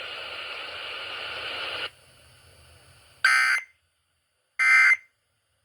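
Emergency Alert System end-of-message data bursts over FM radio: two short, harsh buzzing bursts of digital tones, about a second and a third apart. Before them a steady hiss cuts off about two seconds in. The bursts mark the end of the alert message.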